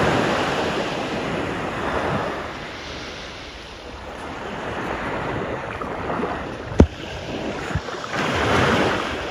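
Sea waves washing onto a sandy beach, swelling and easing, with wind buffeting the microphone. One sharp click about seven seconds in.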